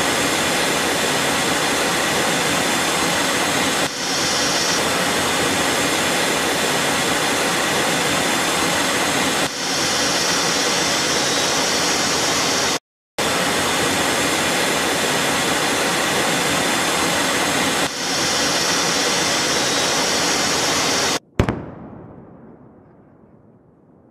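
Fighter jet engine noise, loud and steady, broken by edits at about 4, 9.5 and 18 seconds and by a brief dropout near 13 seconds. About 21 seconds in it cuts off with a short sharp crack that fades away.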